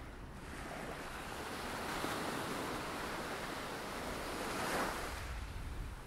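Small waves washing up onto a sandy beach: a hiss of surf that swells over the first couple of seconds and ebbs away near the end.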